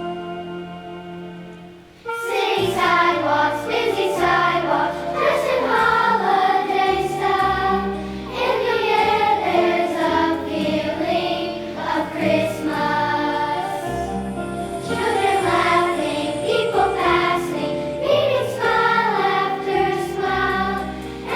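A held instrumental chord fades out, then about two seconds in a school choir starts singing a holiday song with instrumental accompaniment and light percussion.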